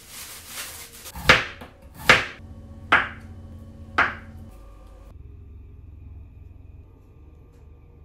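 Kitchen knife striking a wooden cutting board four times, about a second apart, as food is cut, after a soft rustle at the start.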